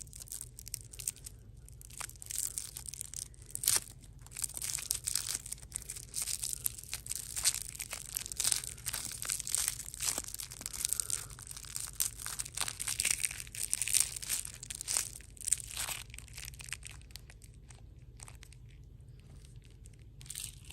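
Close-miked crunching and crackling of crunchy sweets being chewed, dense and irregular, thinning out over the last few seconds, with a steady low hum underneath.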